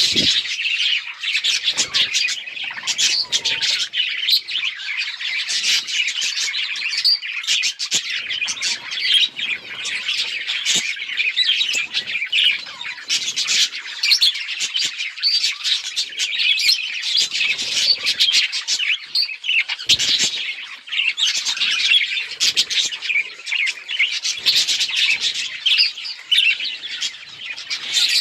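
A flock of budgerigars chirping and chattering continuously, many short warbling calls overlapping, with an occasional squawk.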